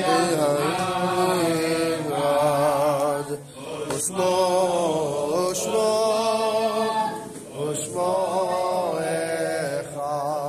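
Men's voices chanting a prayer melody, long held notes with a wavering pitch, breaking off briefly about three and a half seconds in and again near eight seconds.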